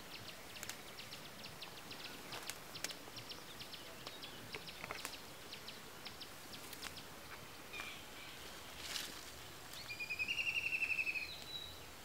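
Outdoor rural ambience: a fast, even ticking call in the first few seconds, scattered snaps and rustles of leafy stems as greens are picked by hand, and near the end a bird's loud, rapid chattering call lasting about a second.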